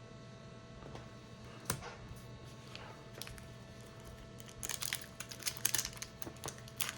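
Pokémon trading cards being handled: one sharp click about two seconds in, then a quick run of light clicks and rustles over the last couple of seconds as the cards are stacked and shuffled. A faint steady hum lies underneath.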